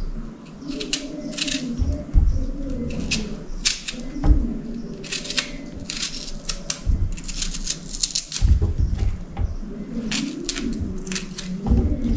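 Kitchen knife cutting a red onion on a plastic chopping board: irregular runs of quick, crisp cuts and taps of the blade on the board.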